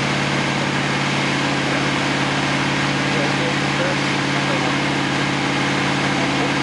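Steady low drone from the parked GMC SUV, unchanging throughout, with faint voices around it.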